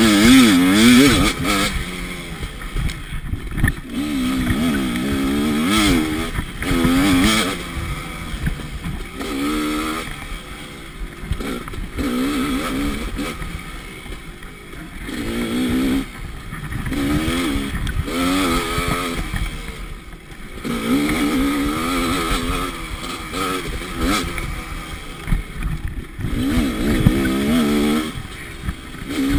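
Dirt bike engine revving up and falling back over and over as the throttle is opened and closed every second or two while riding a rough forest trail.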